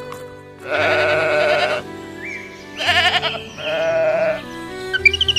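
A sheep bleating three times, each call long and quavering, the first the longest, over background music. Short high chirps begin near the end.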